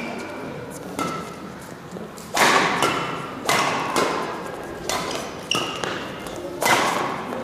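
Badminton rackets striking the shuttlecock in a fast doubles rally: about seven sharp hits, roughly one every second, each ringing on in a large hall.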